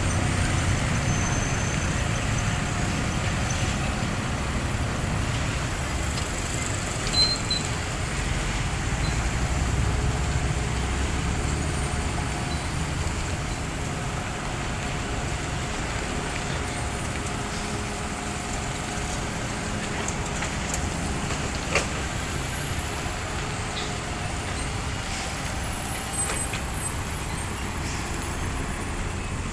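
Heavy earthmoving machinery running steadily, a low diesel engine rumble, with a few short sharp knocks or clanks, the loudest about seven seconds in.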